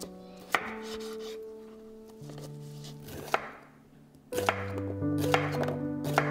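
Chef's knife chopping cucumber on a wooden cutting board: sharp single strokes, two spaced well apart, then several coming quicker in the last two seconds.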